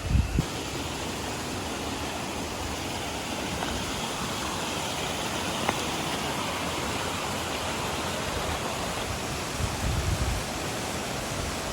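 Waterfall pouring: a steady rushing noise of falling water. A few brief low thumps come near the start and again about ten seconds in.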